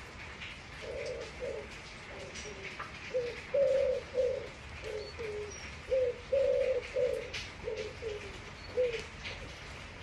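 A pigeon cooing: a run of low, short, slightly falling notes in uneven groups, starting about a second in and stopping near the end. Steady rain with scattered drips runs underneath.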